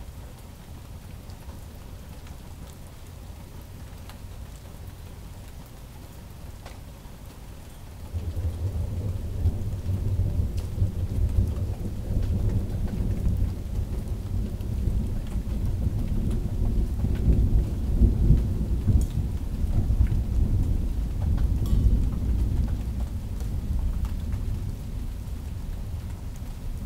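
Thunderstorm: steady rain with scattered drop taps, then about eight seconds in a long low roll of thunder begins suddenly and rumbles on, loudest a little past the middle.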